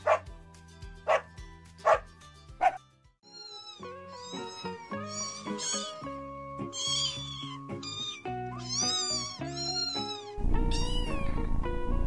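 A French bulldog gives four short barks, then a kitten mews over and over in high, arching cries. Light background music plays throughout.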